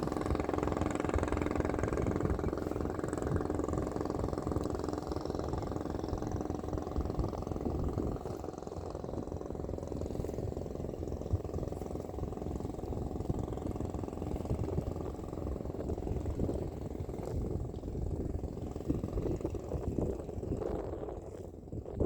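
An engine running with a steady hum that fades away after about eight seconds, leaving a low rumble.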